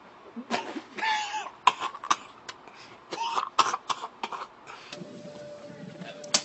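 A person coughing in a series of short, harsh coughs. About five seconds in, a steady faint tone begins.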